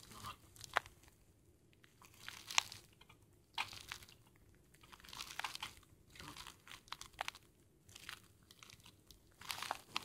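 Faint, irregular clicks of a computer keyboard and mouse being worked, with some soft rustling.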